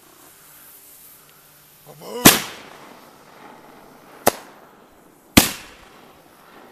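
Consumer fireworks going off: a short rising whistle ends in a loud bang about two seconds in, followed by two more sharp bangs about two and three seconds later, each trailing off in an echo.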